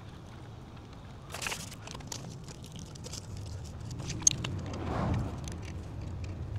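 Scattered light clicks and knocks from a telescoping antenna mast being raised and its sections set, with a low vehicle rumble that swells and fades about four to five seconds in.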